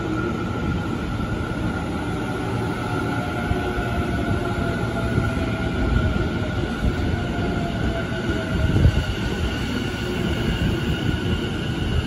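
Tobu 50000 series electric train braking to a stop alongside the platform: a whine from its drive slowly falling in pitch over the rumble of its wheels on the rails, with one louder knock about nine seconds in.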